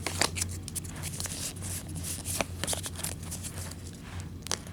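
Trading cards being slid out of a cut-open foil booster pack and handled: soft rustling and paper crinkling with scattered light clicks, busier in the first half and sparser later.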